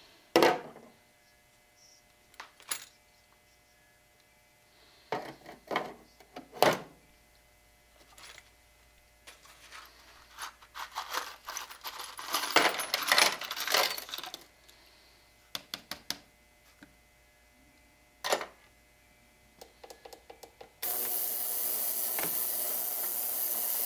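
Small steel revolver parts clinking and rattling as they are dropped into the tank of an ultrasonic cleaner and a plastic parts basket, with the busiest rattling about halfway through. Near the end the ultrasonic cleaner switches on with a sudden steady high hiss.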